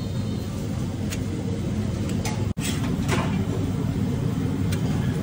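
Steady low rumble of a busy commercial kitchen around a dosa griddle, with a few short scrapes of a metal spatula on the griddle and steel tray as the large dosa is slid off.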